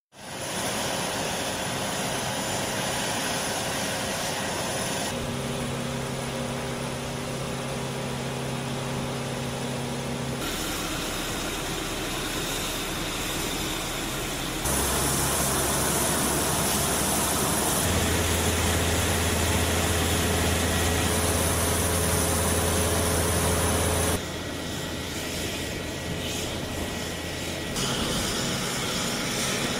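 Steady running of engines and ground equipment on a flight line beside a C-5A Galaxy, with steady hums and a high whine. The mix changes abruptly every few seconds, stepping louder about halfway through.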